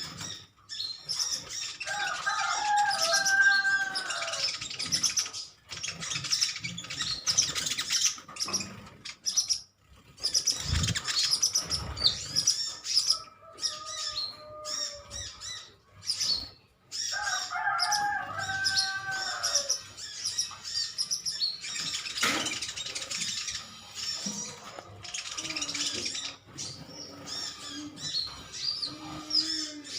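A group of sunbirds keeps up rapid, high-pitched chirping. A lower, whistled two-tone phrase comes in twice, about two seconds in and again about seventeen seconds in.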